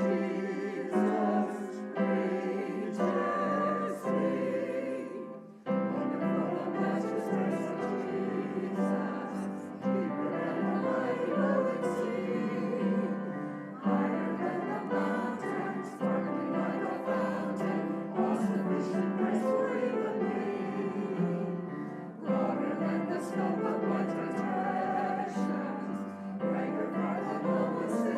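Sung music with instrumental accompaniment: long held, wavering vocal notes over a steady low note, in phrases with short breaks between them.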